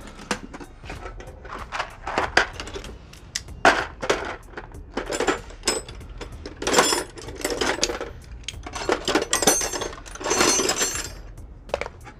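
A lug wrench clinking and clanking against a car wheel's lug nuts as they are broken loose: repeated short metallic knocks, with several longer bursts of metal ringing and scraping.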